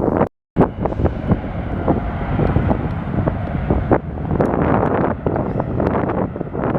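Bombardier Challenger 350 business jet's twin turbofan engines running, heavily buffeted by wind noise on the microphone. The sound drops out for a moment just after the start.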